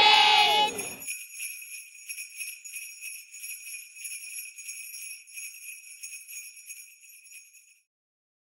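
Jingle bells shaking in a steady, rapid jingle that slowly fades and stops near the end. A falling sound-effect tone trails off in the first second.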